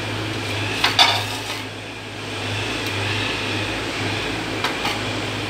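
Two sharp clinks on a stainless steel plate as chopped spring onion is scooped up off it by hand, one about a second in and one near the end, over a steady low hum.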